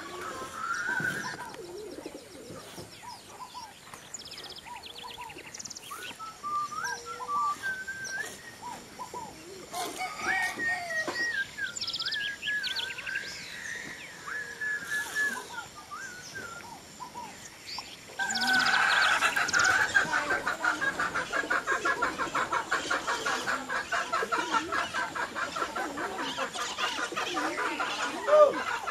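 Birds calling in the dawn chorus, scattered whistled calls at first. About two-thirds of the way in, a much louder, continuous chatter of rapidly repeated calls takes over.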